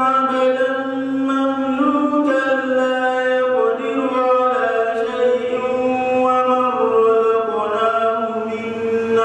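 A man reciting the Quran in Arabic in a slow melodic chant (tajweed), holding long notes that step up and down in pitch.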